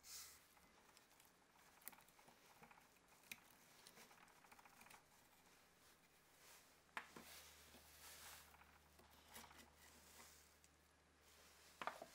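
Faint handling noises: scattered clicks, taps and light scraping of small objects being moved, with a sharper double click near the end.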